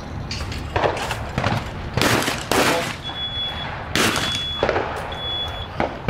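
Several gunshots in succession, roughly one a second, each with a short ringing tail. A thin high tone sounds three times in between during the second half.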